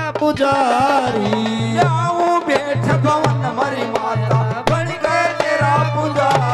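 A Hindi devotional bhajan performed live: a man sings a wavering, ornamented melody into a microphone over a sound system. A dholak keeps a quick, steady beat beneath him, with held accompanying notes behind.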